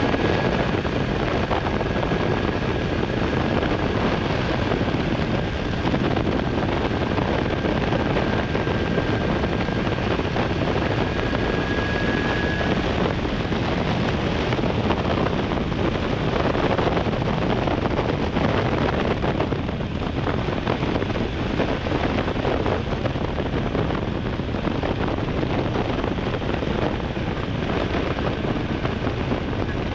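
Honda Hornet 900 inline-four motorcycle engine running steadily under way, mixed with heavy wind rush over the microphone. A thin high whine rides over it for the first dozen seconds or so, then stops.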